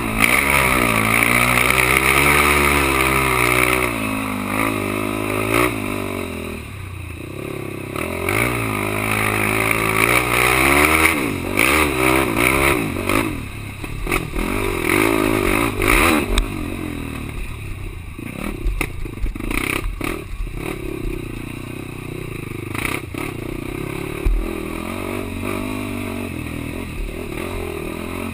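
Quad (ATV) engine revving, its pitch rising and falling again and again, with clattering knocks throughout. In the second half it settles to a steadier, lower note.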